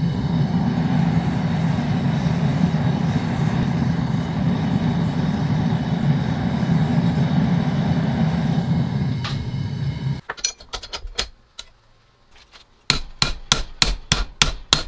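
Venturi propane burner firing inside a homemade forge, a steady low rushing roar. It cuts off about ten seconds in. After a few clicks and a short pause comes a rapid run of hammer blows on a steel bar held in a bench vise, about four a second.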